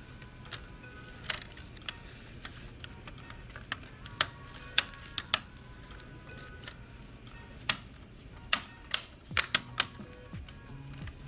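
Scattered sharp plastic clicks and taps from handling a Dell Latitude laptop's keyboard and case, irregular and bunched in the second half, over soft background music.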